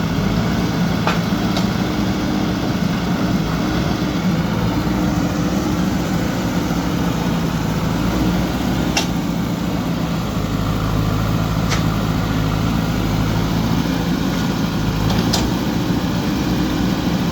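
JCB backhoe loader's diesel engine running steadily, with a few short sharp clicks or knocks scattered through.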